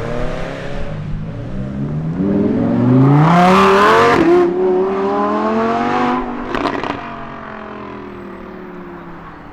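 A car's engine and exhaust under hard acceleration: the revs climb to a loud peak, drop at a gear change about four seconds in, then the note falls and fades as the car drives away, with a few sharp exhaust cracks midway through the fade.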